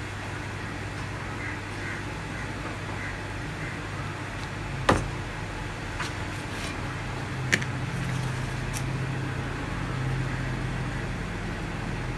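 A steady low hum, like distant traffic, with a few sharp taps from handling things on the work table; the loudest tap comes about five seconds in, and smaller ones follow at about six, seven and a half and nine seconds.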